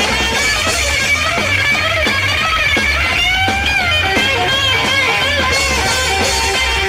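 Rockabilly band playing an instrumental break: electric guitar lead with bent notes over upright bass and drums keeping a steady beat.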